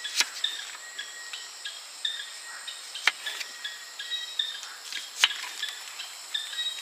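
Night chorus of crickets and other insects: a steady high hum with short chirps repeating several times a second. Three sharp clicks cut through it, one right at the start, one about three seconds in and one about five seconds in.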